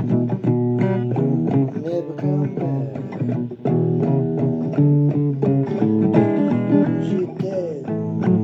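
Blues band playing an instrumental guitar break over bass guitar, the lead guitar bending notes up and down in pitch several times.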